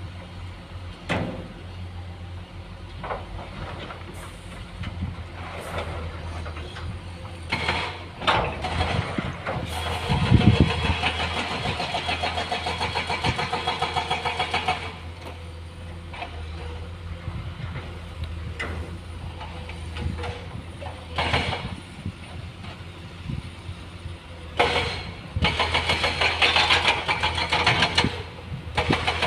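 Diesel dump truck engine running steadily, with two stretches of louder, faster pulsing, about ten seconds in and again near the end, and scattered short knocks.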